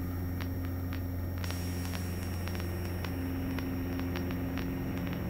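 Cessna Cardinal 177 engine and propeller at full takeoff power during the takeoff roll, a steady low drone with faint ticks, as picked up on the cockpit intercom recording.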